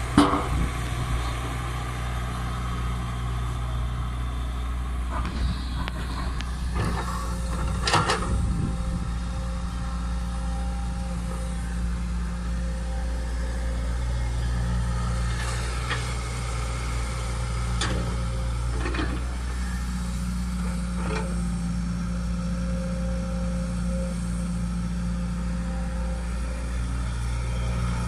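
Tracked excavator's diesel engine running steadily, its note rising and falling with the load as it digs and swings. A few sharp clanks and knocks come from the bucket and the soil being dumped into the dump truck's bed.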